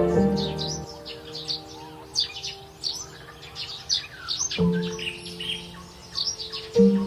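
Forest birds chirping and calling in quick, short notes throughout, over soft background music whose sustained chords fade out in the first second and come in again about four and a half seconds in and near the end.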